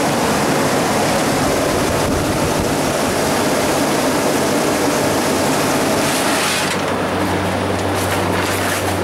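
Rebuilt refrigeration compressor and its plant running under charge: a steady mechanical running noise with a low electric-motor hum. About seven seconds in, the hiss drops away while the hum carries on.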